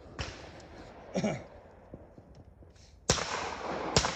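Two loud shotgun shots about a second apart near the end, a pair fired at clay targets, each trailing a long echo. A short shout comes about a second in.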